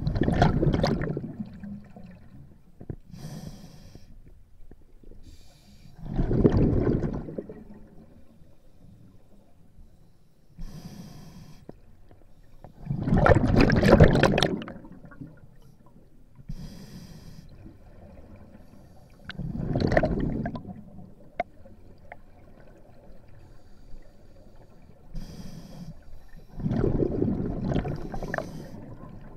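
Scuba diver breathing through a regulator underwater: five long bubbling exhalations about every six to seven seconds, with short, quieter hissing inhalations between them.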